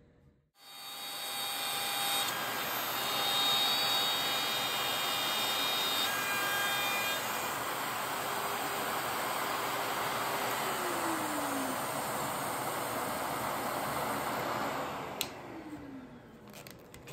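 Compact trim router running and cutting wood in a guitar body, with a dust-extraction vacuum drawing off the chips: a steady whine and rush that starts about half a second in. Near the end a click, and the router winds down.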